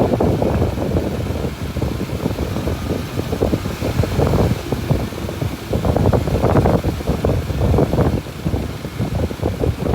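Small Mitsubishi BD2F crawler bulldozer's diesel engine running at work, a continuous low, uneven rumble that rises and falls in level.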